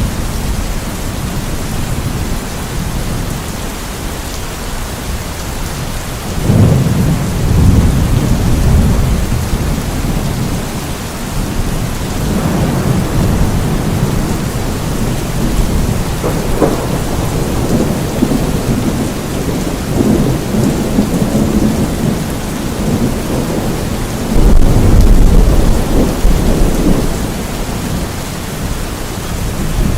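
Steady rain falling, with low thunder rumbling and swelling several times. The loudest rolls come about a quarter of the way in and again near the end.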